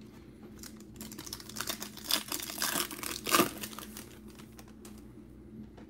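Foil wrapper of a trading card pack crinkling and tearing as it is opened: a dense crackle lasting about three seconds, starting about a second in.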